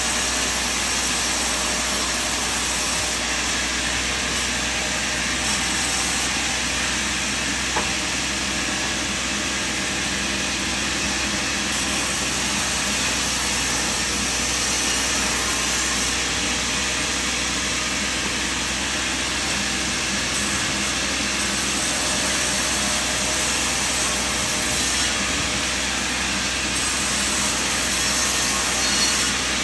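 Sawmill machinery running steadily, a continuous engine-and-saw noise without pauses.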